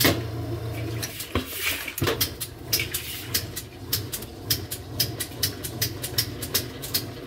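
Kenmore washing machine motor running with a steady electrical hum and rapid, uneven clicking: the strange noise it makes instead of washing, which the owner says is usually a motor fault or could be dirt on the contacts of the motor's switch.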